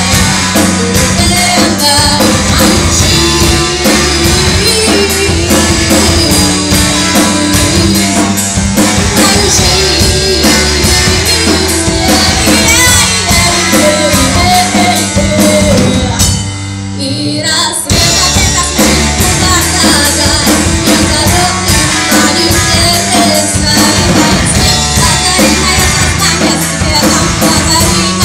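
Live rock band playing: a woman singing over electric bass, guitar and a drum kit. About two-thirds of the way through the band drops out for a moment, then comes back in.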